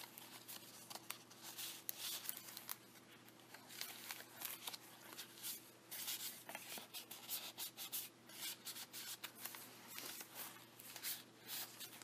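Paper rustling and sliding in many short, irregular scrapes as the pages and paper inserts of a handmade junk journal are handled and turned.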